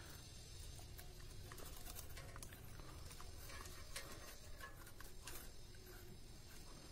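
Faint rustling and small scattered clicks of thin electrical wires being pushed by hand through a hole in a ceiling fan's motor housing.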